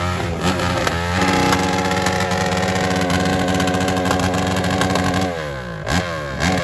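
Small scooter engine revving hard: the revs climb, hold high and steady for about four seconds, then swing up and down repeatedly near the end.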